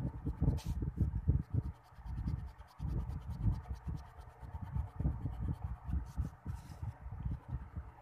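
Rapid, scratchy drawing strokes on paper, close to the microphone, with a brief pause about two seconds in before the strokes resume.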